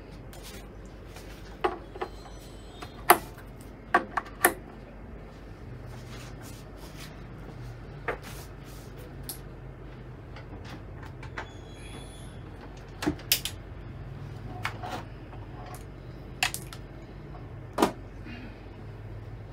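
Irregular clicks and knocks of XLR cable connectors being handled and plugged into the jacks of a Yamaha MG10XUF mixer, the sharpest about three seconds in, over a faint steady low hum.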